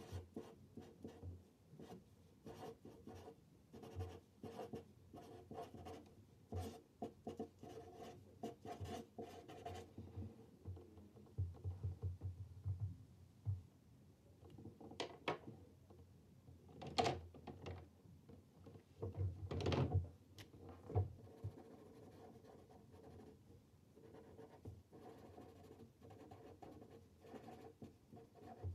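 Felt-tip marker strokes scratching on paper as letters are drawn, in short quick runs. About halfway through come a few louder knocks and rubs as one pen is put down on the table and another picked up.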